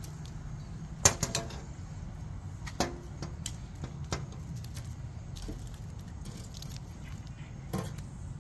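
Metal tongs clinking and scraping against a wire grill basket as grilled shrimp are lifted out: a few sharp clinks with a short ring, the loudest about a second in, others near three seconds and near the end, over a steady low hum.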